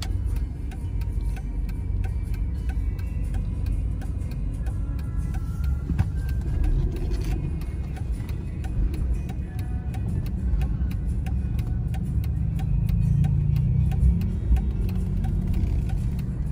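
Mercedes-Benz W211's cabin: a low engine and road rumble while the car moves slowly and turns, with the turn-signal indicator ticking steadily about twice a second.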